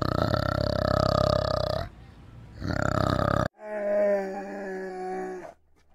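A male orangutan's deep, rapidly pulsing rumbling call, in a long spell and then a shorter one. It cuts off abruptly about three and a half seconds in. Then an Asian black bear gives a drawn-out call, steady in pitch, lasting about two seconds.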